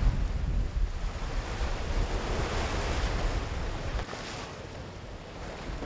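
Water rushing and hissing along the hull of a schooner under sail, with heavy wind buffeting on the microphone that eases about four seconds in.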